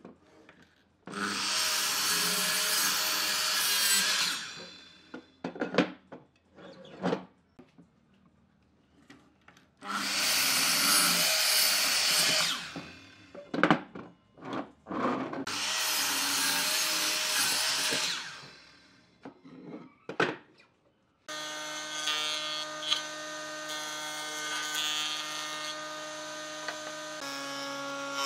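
Makita sliding miter saw cutting through a wooden board three times, each cut lasting about three seconds and winding down, with knocks of the board being handled between cuts. About three-quarters of the way through, a jointer takes over, running steadily, and its pitch drops slightly near the end as a board is fed across it.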